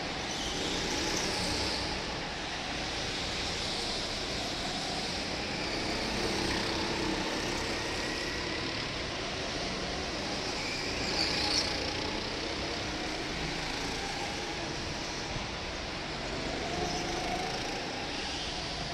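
Go-kart engines running while lapping an indoor track, heard from a moving kart, their pitch drifting up and down with the throttle. A brief, sharper burst of noise comes about eleven seconds in.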